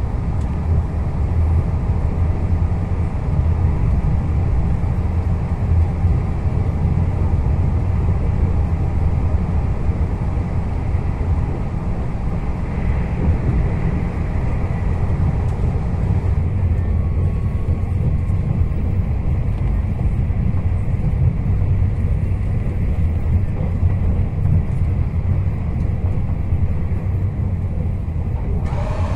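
Steady low rumble of a Puyuma (TEMU2000) tilting electric express train running at speed, its wheels on the rails heard from inside the carriage.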